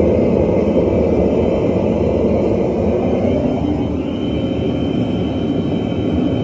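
A forge running with a loud, steady rumble while it heats a Damascus steel billet, with a faint high whine that strengthens about four seconds in.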